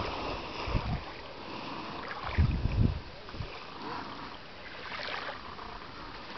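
Beach ambience: small waves lapping in shallow water, with gusts of wind buffeting the microphone about a second in and again between two and three seconds in.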